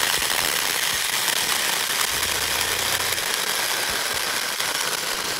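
Battery-powered Taranzy mini handheld chainsaw running steadily under load as its chain cuts through a 3-inch-thick piece of firewood.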